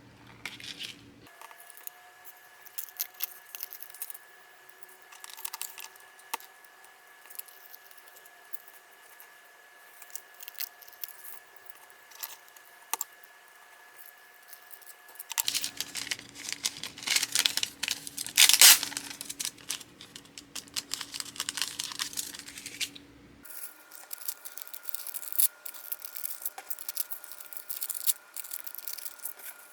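Order packing: plastic and paper packaging rustling and crinkling, with many small taps and clicks as items are handled. It is busiest and loudest in a middle stretch, with one sharp crinkle there.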